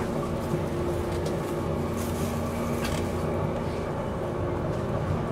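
MT54 traction motors of a JNR 189 series electric train growling under power, heard inside the Moha 188 motor car as steady droning tones over the running rumble of the train.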